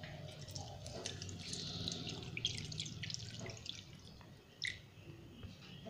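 Milk pouring from a steel pot into a kadai with melted ghee, a faint run of small splashes and drips. The pour tails off about two-thirds of the way through, and a single light tap follows.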